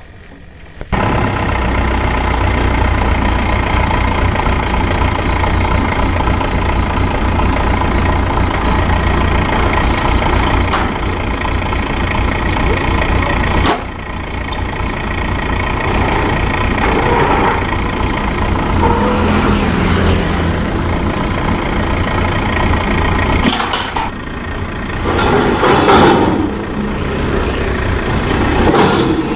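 The engine of a Maxxi Bimo 102 rice combine harvester running steadily. It starts abruptly about a second in and grows louder and more uneven in the last few seconds.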